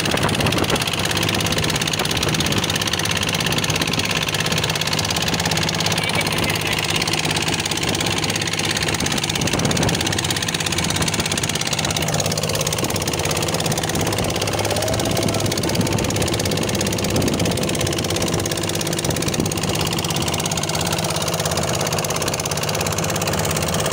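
Fishing boat's engine running steadily: a constant low drone.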